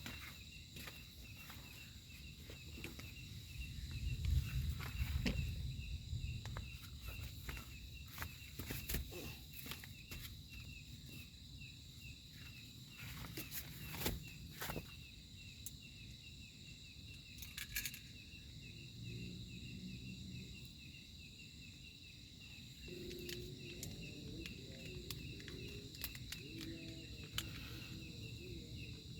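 Night insects keep up a steady high trill with a fast pulsing chirp beneath it. Scattered sharp clicks and knocks sound over it, with a low rumble about four seconds in.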